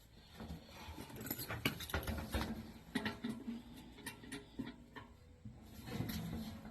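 Faint, irregular clicks and rustling of hand and tool handling, with no steady machine running.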